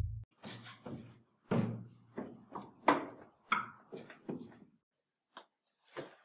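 A series of about a dozen irregular knocks and thuds, like wood and a door being handled, the loudest about three seconds in.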